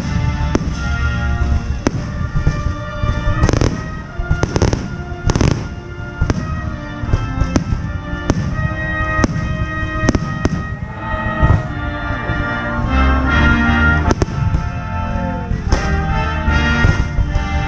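Aerial fireworks bursting in a rapid, irregular series of loud booms and cracks, over music playing at the same time.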